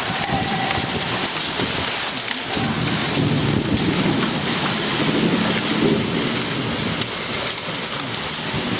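Hail and heavy rain hitting pavement and tiles: a steady hiss of rain with many sharp little ticks of hailstones striking.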